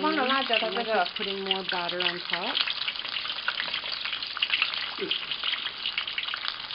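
Hot oil sizzling with a dense crackle in a pot as dough cakes deep-fry. A voice talks over it for the first two seconds or so.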